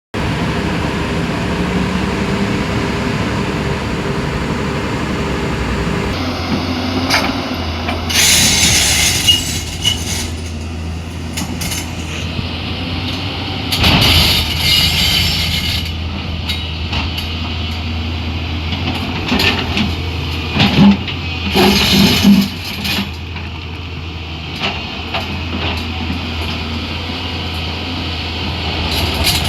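Heavy diesel machinery engine running with a steady low hum, broken by several short loud bursts of noise.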